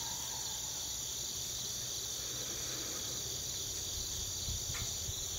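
Steady, high-pitched chorus of insects calling without a break. From about four seconds in, low gusts of wind buffet the microphone.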